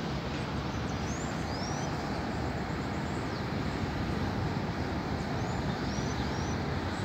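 Steady low rumble of city traffic, with short high chirps from small birds now and then.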